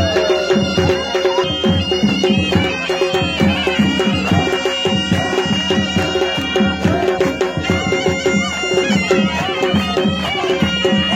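Traditional Gilgiti dance music: a shrill reed wind instrument playing a wavering melody over fast, steady drumming.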